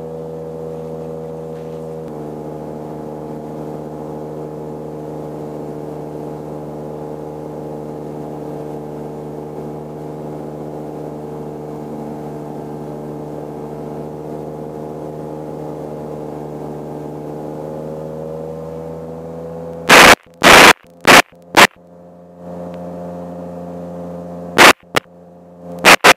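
Light taildragger airplane's engine and propeller droning steadily in flight as an even hum, rising slightly in pitch a few seconds before the end. Near the end several very loud, short crackles break in.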